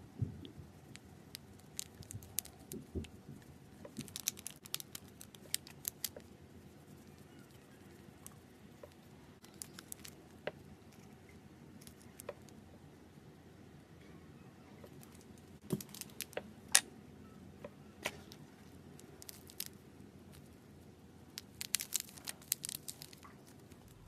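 Small plastic packets crinkling and glitter and snowflake sequins pattering onto slime, in scattered clusters of sharp little crackles and clicks.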